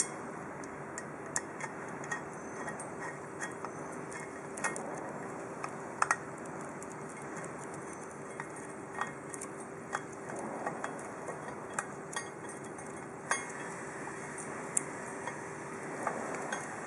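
Irregular small metal clicks and clinks of a hex key working the set screw of a bracket clamped on a chrome steel tube, over a steady faint hum.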